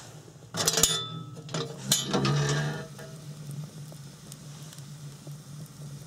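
Metal cookware and utensils clattering and clinking for a couple of seconds, with a few short ringing clinks, over a steady low hum. The clatter starts about half a second in and dies away near three seconds.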